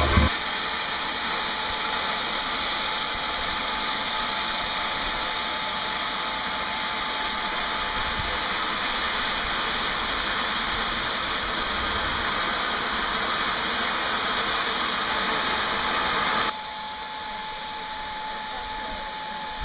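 Steam hissing steadily from a standing Italian FS steam locomotive. The hiss drops to a quieter level about 16 seconds in.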